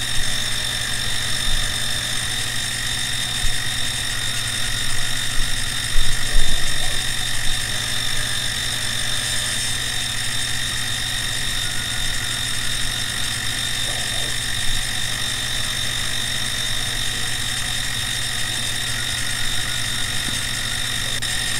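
Benchtop CNC milling machine taking a roughing pass in aluminium with an end mill: a steady high whine from the spindle and motors over a low hum, with the cut getting briefly louder about six seconds in.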